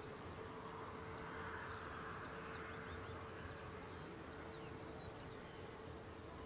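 Faint open-field ambience: a steady hum, a soft whoosh that swells and fades about two seconds in, and scattered faint high bird chirps.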